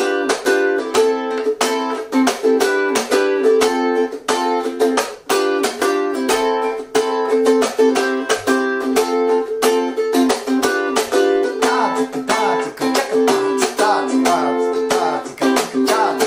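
Ukulele strummed slowly in a 16th-note pattern with muted 'chuck' strokes (chucks and cutting), played through the chorus chords starting on F and G7. A man's voice sings along over the last few seconds.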